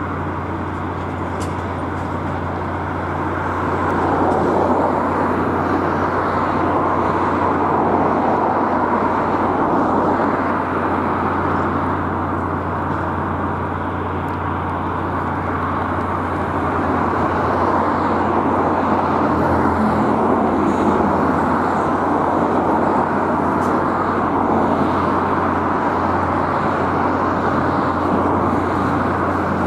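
Long intermodal container freight train rolling past: a steady rumble and rattle of wagon wheels on the rails, over a constant low drone.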